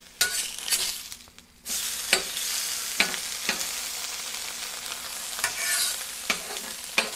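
Eggs and Canadian bacon sizzling on a flat-top griddle, with a long metal spatula scraping and clicking against the hot plate as the food is slid around. The sizzle dips for a moment about a second in and comes back strongly, with sharp spatula clicks several times.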